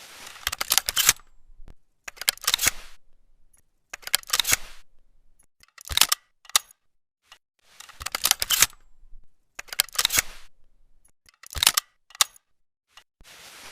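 Mechanical clicks and clacks of a Browning Citori 525 over-and-under shotgun's break action being handled, in short groups about every two seconds.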